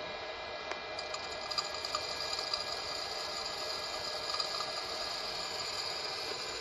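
Hot-air popcorn popper running: its fan blows a steady whir, with light ticks from the unpopped kernels spinning in the chamber before popping starts.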